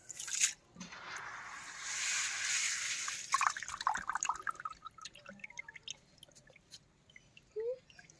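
Water pouring and dripping off a handful of soaked, freshly sprouted rice paddy seed lifted out of a tub of water. There is a short splash at the start, then a stream of water for about two seconds, then scattered drips that thin out.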